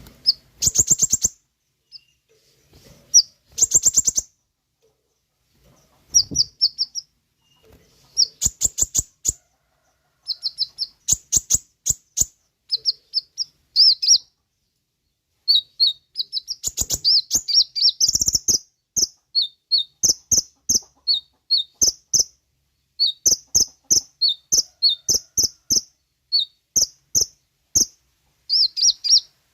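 Kolibri ninja sunbird singing: rapid, high chattering trills made of fast ticking notes, in short bursts at first and almost continuously in the second half.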